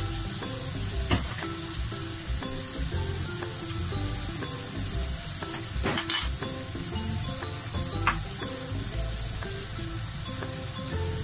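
Eggs frying in hot oil in a small square pan: a steady sizzle, broken by a few sharp knocks, the loudest about six seconds in. Faint background music plays underneath.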